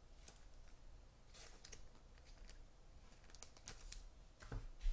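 Faint rustling and clicking of trading cards being handled and slid against each other, with a thump near the end.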